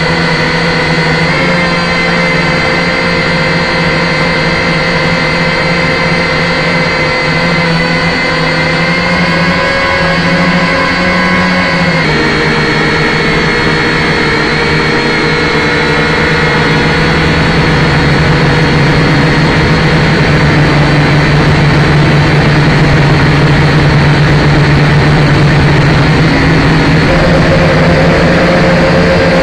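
Syma X5C toy quadcopter's small electric motors and propellers whining steadily, heard up close through its own onboard camera. The pitch shifts a few times, and the whine gets a little louder past the middle.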